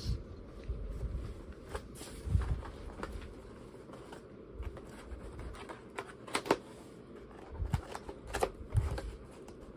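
Keyboard packaging being handled and opened by hand: rustling and scraping with scattered sharp clicks and a few dull knocks.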